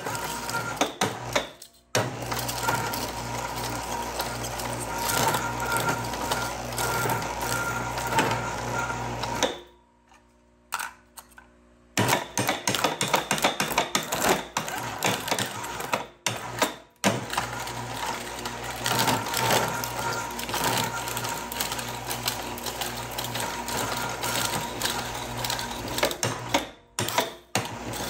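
Precious Plastic shredder's steel blades chewing up aluminum cans: dense crackling and crunching of tearing metal over a steady motor hum. It breaks off for about two seconds in the middle, then resumes.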